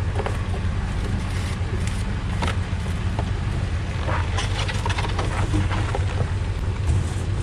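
Pickup truck on the move, a steady low rumble of engine and road noise.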